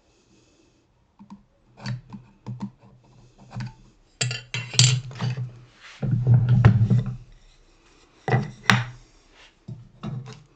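Wood and hand tools being handled on a workbench: irregular knocks and clicks, with a longer scraping stretch a little past halfway.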